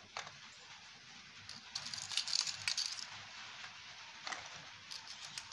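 Stainless-steel bowl and spoon clinking against a ceramic bowl as boiled peas are tipped and spooned in. A burst of rapid clatter comes about two seconds in, with scattered single clicks around it.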